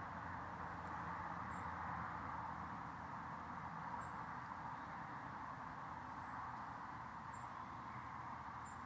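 Steady, quiet outdoor background hiss with a few faint, brief high chirps scattered through it.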